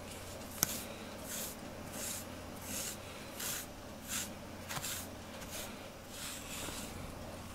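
Grooming brush drawn again and again through a cat's fur, a short scratchy stroke roughly every two-thirds of a second, with one sharp click about half a second in.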